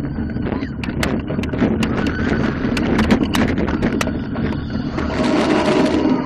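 Roller coaster train running along its steel track: a loud rumble and wind noise with rapid clattering and rattling from the wheels and cars.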